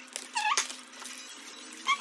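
A person's voice sped up to a high, squeaky chipmunk pitch by fast-forwarded footage: a short squeaky syllable about half a second in and another starting near the end.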